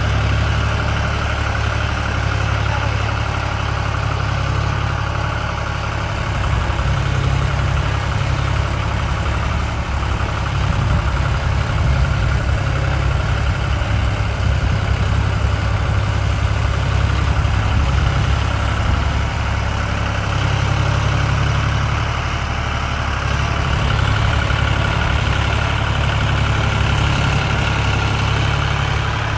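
John Deere 5039 tractor's three-cylinder diesel engine running steadily under load as it pulls a fully loaded soil trolley.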